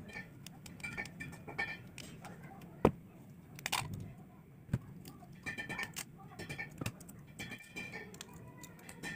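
Small plastic parts of a dismantled mobile phone and its LCD screen clicking and tapping as they are handled, with one sharp click about three seconds in. Short high chirps come and go over a steady low hum.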